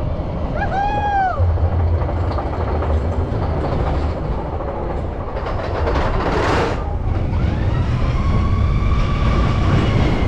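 Expedition Everest steel roller coaster train running along its track, a steady low rumble and clatter of wheels on rails. A brief rising-and-falling tone sounds about a second in, a short rushing hiss about six seconds in, and a steady high whine sets in near the end.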